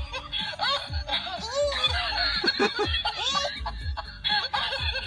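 Young child laughing and giggling in many short bursts.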